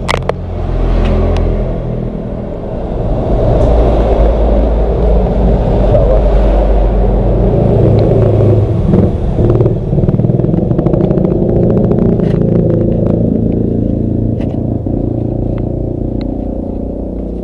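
Motorcycle engine running loudly. It grows louder about three seconds in, holds there, and eases off near the end.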